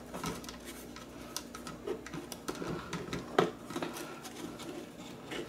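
Irregular small clicks, taps and rubbing from hand-handling wires and parts inside a wooden clock case, with one sharper knock about three and a half seconds in.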